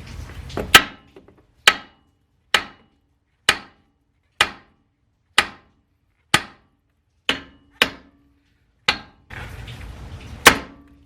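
About eleven hammer blows, roughly one a second, on the steering spindle to knock the outer tie rod end's tapered stud loose. A short stretch of steady noise comes in just before the last blow.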